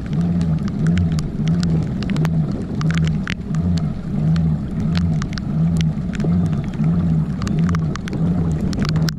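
Native Titan Propel kayak pedal drive whirring as it is pedalled, its low gear hum swelling and fading with each pedal stroke, about three times every two seconds. Raindrops tick sharply and irregularly over it.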